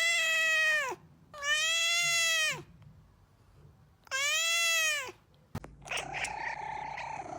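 A domestic cat giving three long, drawn-out meows, each rising and then falling in pitch, with short gaps between them. After a click, a rougher, raspier cat call follows and runs for about a second and a half.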